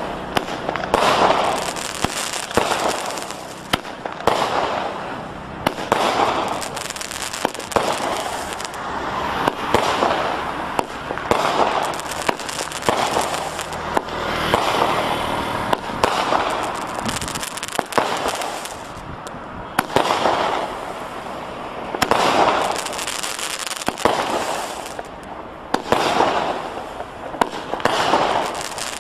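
Consumer fireworks cake firing shot after shot, a burst every second or two. Each shot comes with sharp pops and a wash of crackling from its golden crackling peony stars.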